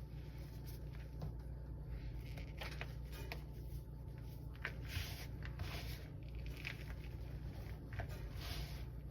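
A block of gym chalk squeezed and crushed in the hand, squeaking and crumbling in short crunches about once a second.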